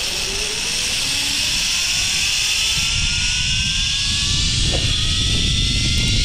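Zipline trolley pulleys running along a steel cable, with a whine that slowly rises in pitch from about a second in, over wind rushing on the microphone.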